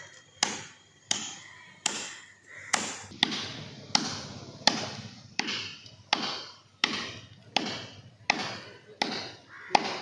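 Steady chopping into the trunk of a dry coconut palm with a hand-held blade: about fourteen sharp strikes, roughly one and a half a second, each followed by a short ring.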